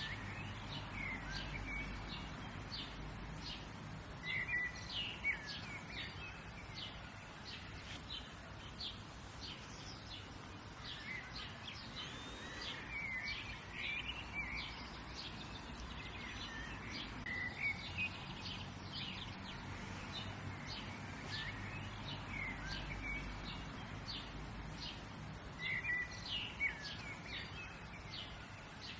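Several birds chirping and singing in short phrases over a steady low outdoor background, with a few louder bursts of song now and then.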